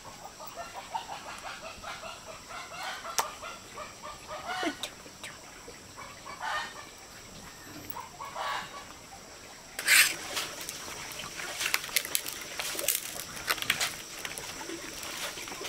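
Chickens clucking in short repeated calls during the first few seconds. About ten seconds in comes a loud knock, then a run of sharp clicks and taps.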